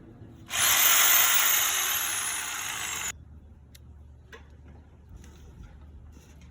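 Jigsaw cutting into the sheet-metal roof of a van, a loud rasping burst of about two and a half seconds with a high whine that falls steadily as the motor works, then stops abruptly.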